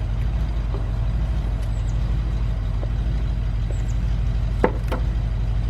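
Steady low mechanical rumble with a fine, even pulse, with two sharp knocks close together a little before the end, made while an ignition coil is being worked into place by hand.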